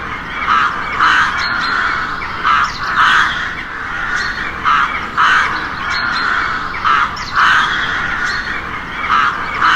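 A crow cawing repeatedly: paired harsh caws, a short one then a longer one, about every two seconds.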